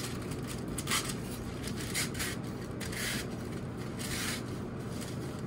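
A stack of parchment paper being torn apart by hand along its folded creases: several short papery rips and rustles about a second apart, over a steady low background hum.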